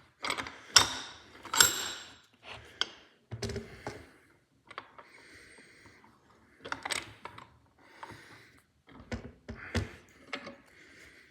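Metal knocks, clanks and scraping as a new ABS reluctor ring is turned and worked onto a car drive shaft. The two loudest, ringing strikes come close together near the start, with scattered lighter knocks after.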